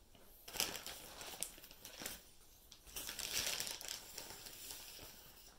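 Rustling and crinkling handling noises, with a few light knocks in the first two seconds and a denser rustle in the middle.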